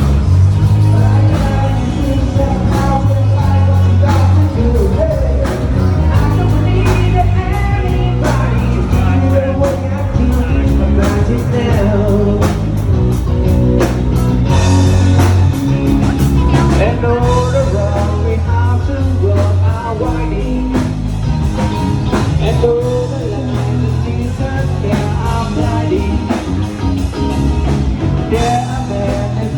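Loud amplified music with a singing voice over a heavy bass and drum beat.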